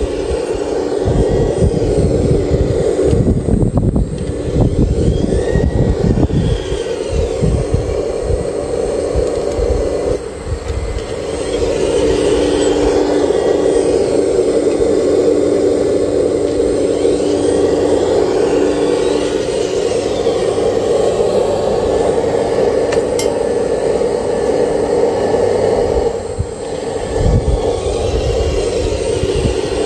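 Radio-controlled Liebherr R 970 model excavator running with a steady motor whine that dips briefly twice. It crunches and scrapes as the bucket digs into dry soil in the first several seconds and again near the end.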